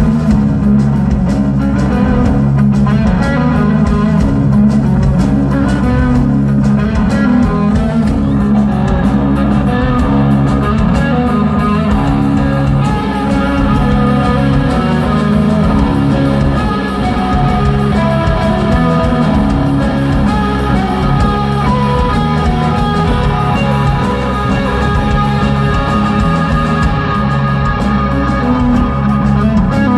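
Live stoner rock played loud by a power trio: electric guitar, bass guitar and drum kit, with a heavy low end.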